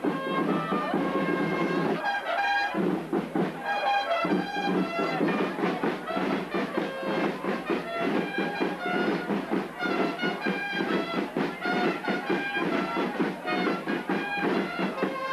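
Band music with brass instruments: held notes over a steady beat.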